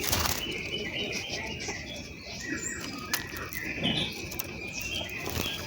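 Small birds chirping faintly in short high notes over a steady high tone, with a brief fluttering rustle at the start.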